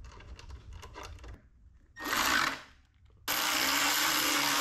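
Light clicks of metal parts being handled, then a cordless power tool with a 13 mm socket spins briefly about two seconds in and again for about two seconds near the end, driving a pannier-bracket bolt into the motorcycle frame.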